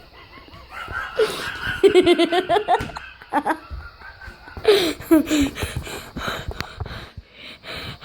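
A man laughing so hard he is wheezing: rapid pulses of breathy laughter in two long bouts.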